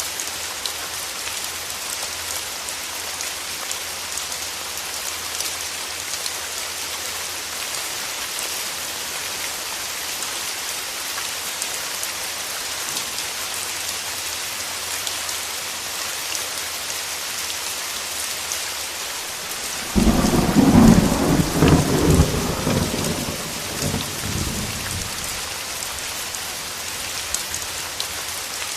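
Steady heavy rain falling, with a clap of thunder breaking in suddenly about two-thirds of the way through and rumbling away over several seconds.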